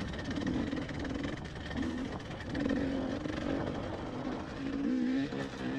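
KTM 300 two-stroke enduro dirt bike's engine running at low speed on a rocky climb, its note rising and falling with short, repeated pulls of the throttle.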